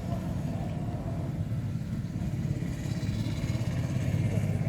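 Motor vehicle engine running close by with a steady low rumble, growing a little louder over the last couple of seconds.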